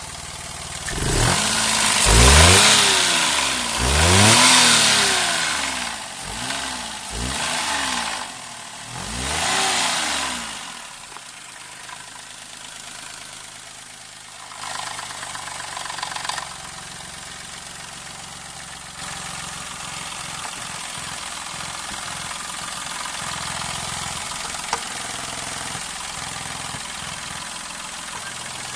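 Daihatsu Move L175S's three-cylinder kei-car engine revved up and let fall back about five times, then settling to a steadier idle. It is making an abnormal noise that the owner describes as the engine screaming.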